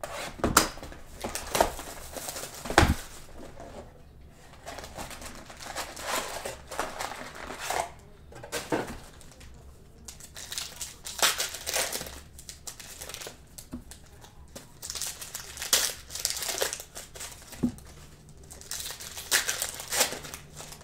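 Plastic wrapping of trading-card boxes and packs crinkling and rustling in short irregular spells as the packs are handled and taken out of the boxes.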